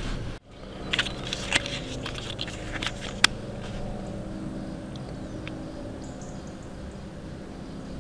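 Compass retail packaging, a card-and-plastic blister pack, being handled in the hands: a run of crackles and clicks in the first few seconds, with one sharp click about three seconds in. After that only a steady low background hum remains.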